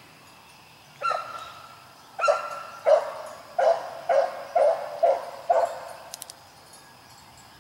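A rabbit-hunting hound barking, about eight loud barks starting about a second in and coming roughly two a second toward the end: the dog giving voice as it runs a rabbit's trail.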